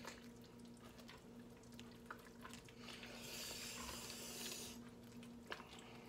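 Faint hiss of seasoning being shaken into a slow cooker of mole, lasting about a second and a half near the middle, with a few light clicks over a low steady appliance hum.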